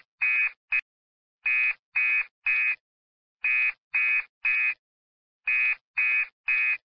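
Electronic alarm beeping in groups of three short, identical high beeps, a new group about every two seconds.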